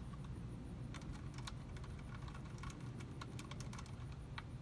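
Scattered light clicks and ticks of the fasteners being threaded in and snugged on a mass airflow sensor in an engine bay, over a low steady background rumble.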